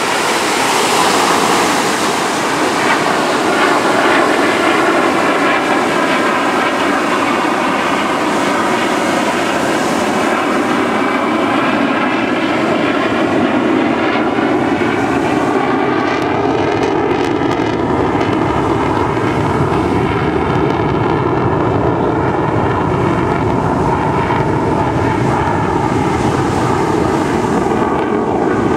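Twin jet engines of an F/A-18 running loud and steady through a slow, gear-down pass, with a slowly sweeping, phasing whoosh as the jet moves across the sky.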